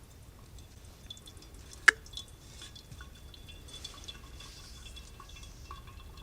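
Water dripping and trickling through the coffee grounds of a pour-over during the bloom, with a single sharp click about two seconds in.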